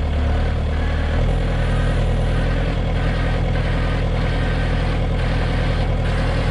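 Diesel engines running steadily as a stuck Bobcat T300 skid steer is driven forward out of a hole, with a tow truck's engine running alongside; the engine note changes about a second in.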